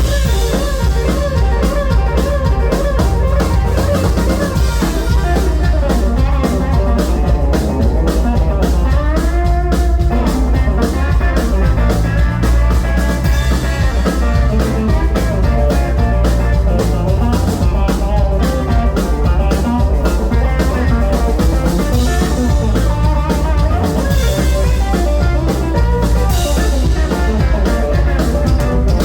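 A live band plays an instrumental passage at sound check, led by a drum kit and electric guitar, with a steady beat.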